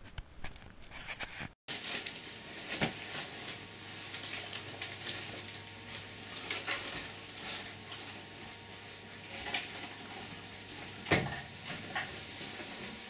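Scattered light knocks and rustles from a handheld camera being carried around, over a steady low hum, with a sharper knock about eleven seconds in.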